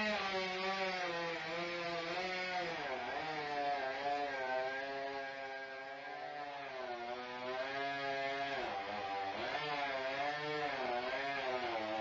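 Chainsaw engine running under cutting load, its pitch sagging and climbing back several times.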